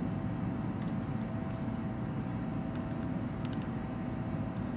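Steady low background rumble of room or machinery noise with a faint constant hum, and a few faint clicks of a computer mouse as the chart is zoomed.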